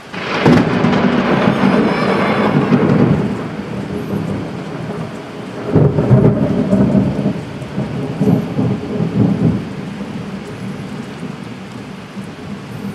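Close lightning strike in a cloudburst: a sudden sharp crack just after the start, then rolling thunder that rumbles and fades, swells again about six seconds in and dies away, over steady heavy rain.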